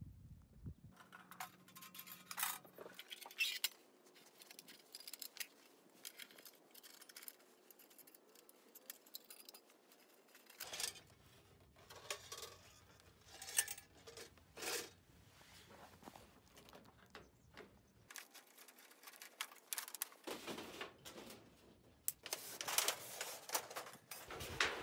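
Stainless-steel wood stove parts being handled: scattered metal clinks, rattles and scrapes as the panels, stove pipe and rings are moved, getting busier and louder near the end.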